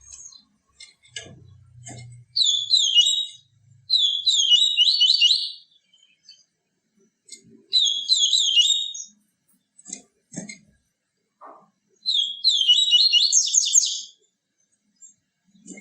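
A papa-capim seedeater singing its "tui tui viviti" song: four fast, chattering phrases of high notes, a few seconds apart, with faint knocks between them.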